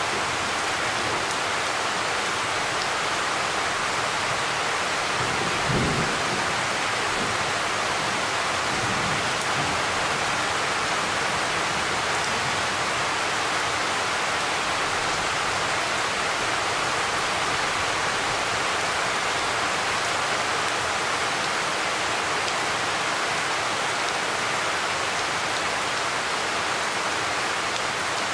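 Steady rain falling during a thunderstorm. A brief low rumble comes about six seconds in, with a fainter one about three seconds later.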